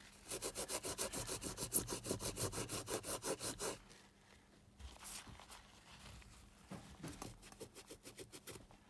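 Rapid back-and-forth scrubbing strokes on a battery cell, cleaning off the corrosion left by leaked electrolyte: a fast run of about three and a half seconds, a pause, then a shorter run near the end.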